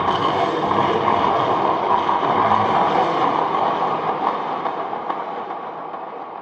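Distorted industrial horror sound effect: a dense, rattling mechanical noise with faint steady tones running through it, starting abruptly and slowly fading away.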